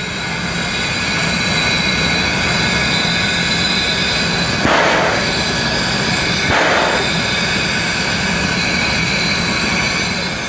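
Steam hissing loudly and steadily from the front of 1909 steam locomotive A428, with two short, louder rushes of steam about halfway through, two seconds apart.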